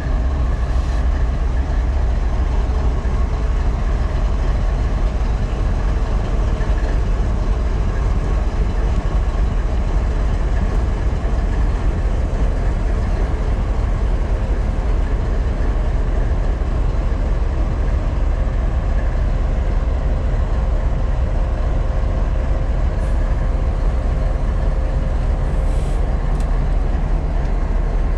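GE ES44DC diesel-electric locomotive's GEVO V12 engine running with the locomotive standing still, heard up close: a loud, steady, deep drone that does not change.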